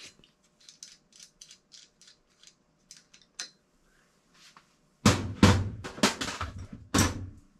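Light metallic clicks and taps of a wrench working the handle nut off a brass ball valve as the handle is removed. About five seconds in, these give way to several loud knocks and thumps.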